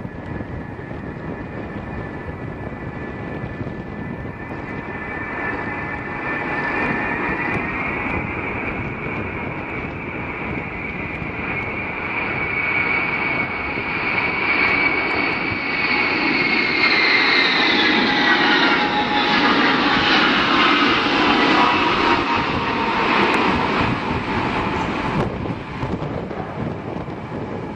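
An aircraft passing by: a steady engine noise with a high whine that falls in pitch as it goes by, loudest a little past the middle.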